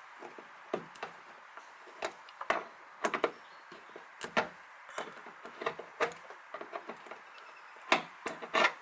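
Irregular sharp clicks, taps and small knocks of a hand tool working on small hardware, loudest near the end.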